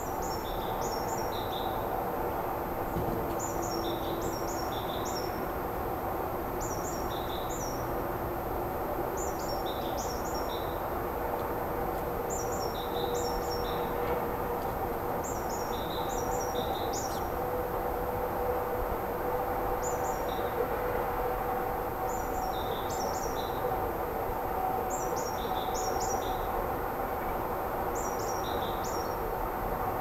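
A songbird singing short, high chirping phrases, repeated about every two seconds, over a steady low background hum.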